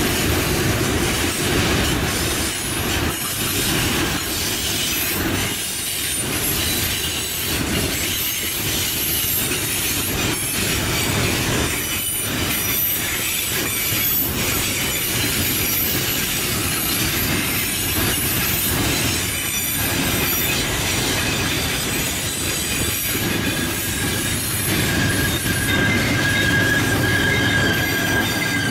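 Freight train of hopper and box wagons rolling past, steel wheels rumbling and clattering on the rails with squealing. A steady high wheel squeal comes in near the end.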